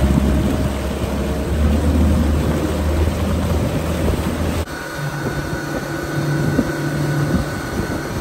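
Motorboat engine running steadily, with wind and water noise over it. About halfway through, the sound cuts abruptly to a different steady engine drone with a faint higher whine.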